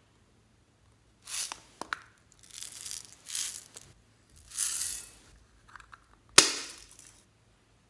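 Hard plastic container being handled: a couple of clicks as it opens, then small beads rattling and spilling out in several short bursts, and one sharp plastic click near the end.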